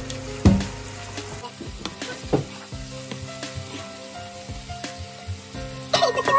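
Onion-and-spice masala sizzling in hot oil in a nonstick wok as a plastic slotted spatula stirs and scrapes it, with a sharp knock about half a second in. The masala is fried through and ready for the mince.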